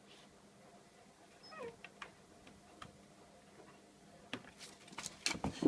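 A domestic cat gives a short falling yowl while squaring up to a dog. Scattered light knocks follow, and a louder tangle of animal cries and knocks comes near the end.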